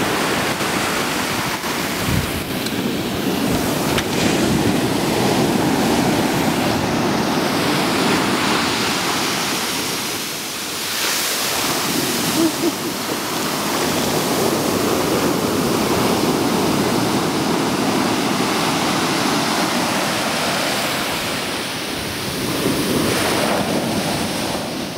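Wind buffeting the camera's microphone: a loud, steady rushing noise that eases briefly about ten seconds in.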